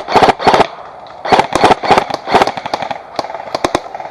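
Airsoft gun firing short, rapid full-auto bursts, several in quick succession, then a few single shots near the end.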